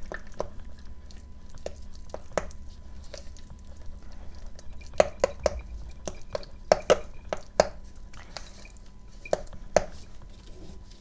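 Hands working damp clay-and-chalk paste: irregular sharp clicks and taps with soft handling noise, coming thickest about halfway through.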